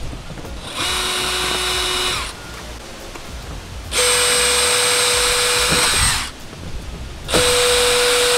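DeWalt cordless drill with a 3/32-inch bit drilling pilot holes into house siding: three runs at a steady speed, the first shorter and quieter, the next two louder.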